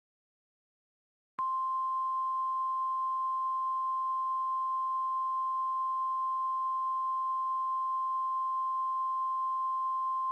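Emergency Alert System attention signal: a single steady, pure tone, the single-tone form heard on NOAA Weather Radio alerts. It starts abruptly about a second and a half in and holds at one even pitch and level for about nine seconds, warning that an alert message follows.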